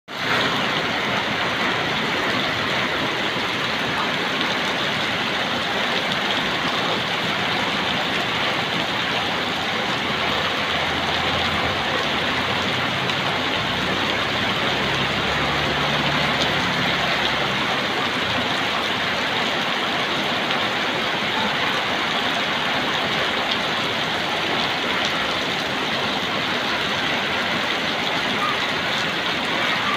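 Heavy rain pouring down, a steady dense hiss. A low hum swells and fades about halfway through.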